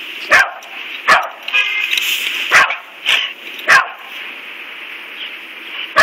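A dog barking: short, sharp barks in an irregular run, five in the first four seconds, then a pause and one more at the end.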